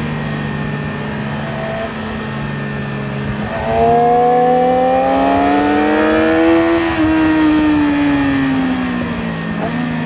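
Yamaha R6 inline-four sport-bike engine heard from the rider's seat: running steadily at first, then about three and a half seconds in it gets louder and the revs climb for about three seconds before falling away as the throttle is rolled off, over a steady rush of wind noise.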